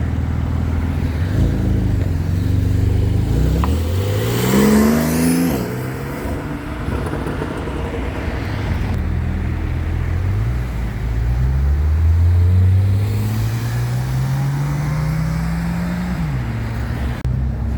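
Sports car engine accelerating: revs climb quickly and fall away about five seconds in, then climb again slowly and steadily for several seconds before dropping near the end.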